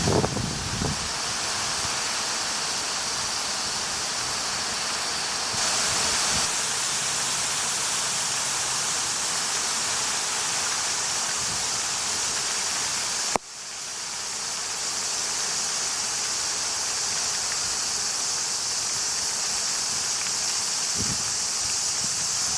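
Steady rushing hiss of typhoon rain and wind. It grows louder a few seconds in, drops off suddenly about halfway, then swells back up.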